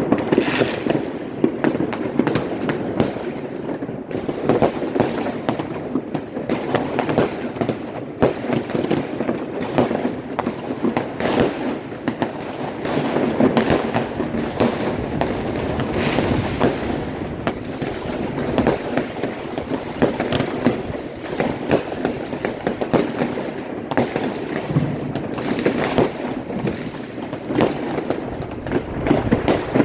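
Fireworks and firecrackers going off without a break, many sharp cracks and bangs overlapping one another over a continuous rumble.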